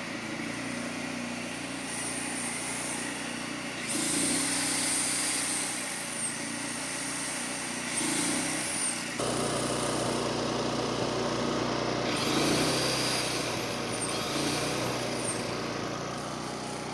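Champion 100302 3500-watt inverter generator running steadily under load while plugged-in power tools are switched on and off; their motors whine up and wind down several times, the loudest spin-up about twelve seconds in, and the running noise gets louder about nine seconds in as more load comes on.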